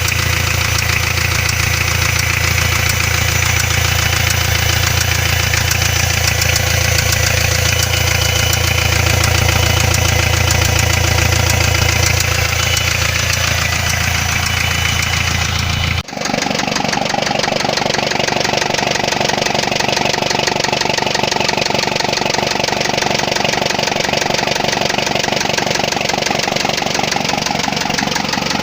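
Hyundai Starex 2.5 four-cylinder turbo-diesel idling with a steady rhythmic engine knock, the knock of an engine damaged after its turbocharger failed. About halfway through, the sound changes abruptly, the deep low end dropping away while the running knock carries on.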